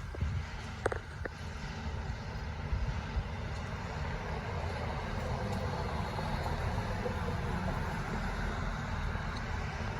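Engine of heavy landscaping machinery running steadily, a low rumble, with a few sharp clicks about a second in and a couple of knocks around three seconds.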